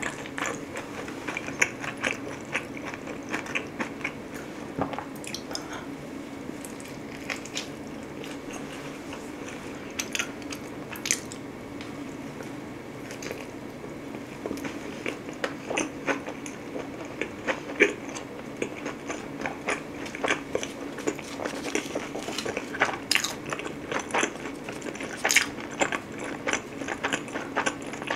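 Close-miked pizza eating: biting into the crust and chewing, with frequent short crisp crunches and wet mouth clicks, over a steady low hum.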